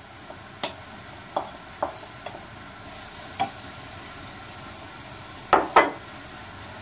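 Chopped onion scraped off a plate into a hot oiled frying pan with a wooden spoon: a run of light taps and scrapes over a faint steady sizzle of the onion starting to fry, with two louder knocks about five and a half seconds in.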